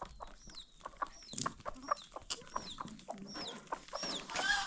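Chickens clucking, with short, high, falling chirps repeating about twice a second among scattered light taps, and a louder call near the end.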